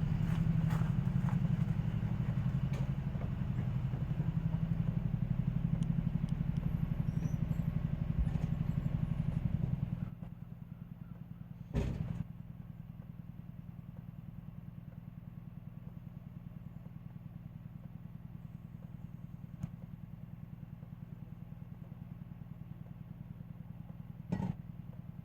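A motor or engine running steadily with a low hum and a fast even pulse, dropping noticeably in level about ten seconds in. Two sharp knocks come through, one near the middle and one near the end.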